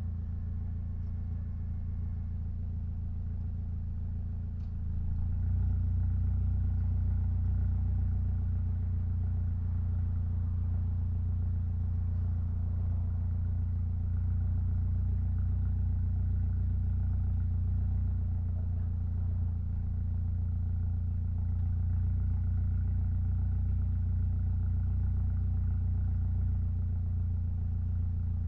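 Mitsubishi Lancer Evolution X's turbocharged 2.0-litre four-cylinder engine running steadily with a low drone, getting louder about five seconds in and then holding even.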